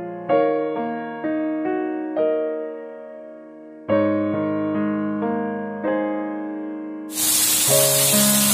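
Slow piano music, single notes and chords struck and left to fade. About seven seconds in, the loud steady hiss of heavy rain cuts in suddenly and carries on under the piano.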